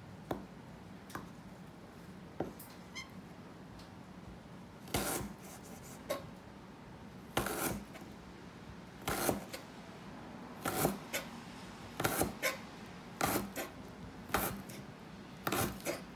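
Chef's knife slicing ginger root on a plastic cutting board: a few light taps, then from about five seconds in slow, separate cuts, roughly one every second or so.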